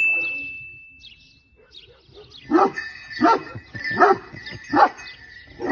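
Large Aksaray Malaklı shepherd dog barking deeply, five barks about three quarters of a second apart, starting a couple of seconds in. A high steady tone sounds at the start and fades out within the first second and a half.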